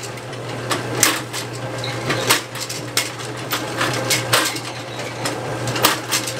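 Bowling pinsetter running after a pin jam has been cleared: a steady machine hum under irregular sharp metal clanks and clicks every second or so, as the distributor and pins are knocked back into place.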